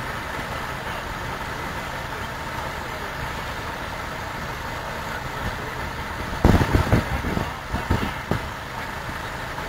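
Small hand-cranked wooden threshing machine being turned while sheaves of corn are fed into it: a steady mechanical whirr, with a burst of heavy knocks and thumps about two-thirds of the way through.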